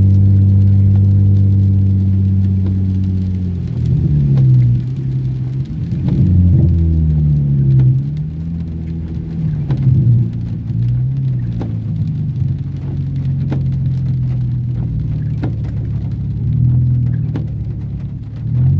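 Nissan 350Z Nismo's V6 engine and exhaust heard from inside the cabin: a steady drone for the first few seconds, then the revs rise and fall several times as it pulls through the gears, with a short rise and drop near the end. Rain runs underneath.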